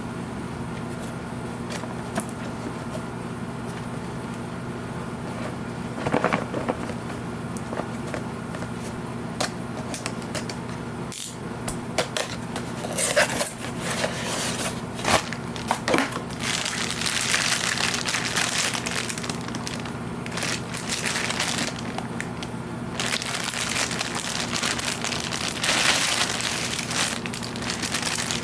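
Figure packaging being handled: plastic wrap and blister crinkling and crackling against the cardboard box, with scattered clicks and taps. The rustling gets denser about halfway through, over a steady low hum.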